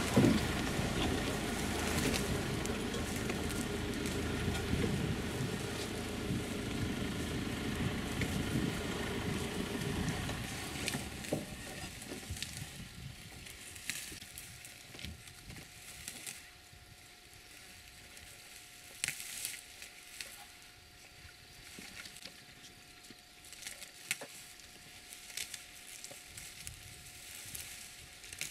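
African elephants grazing in tall grass: a crackling rustle of grass being torn and chewed, fuller over the first ten seconds, then fainter, with scattered sharp snaps.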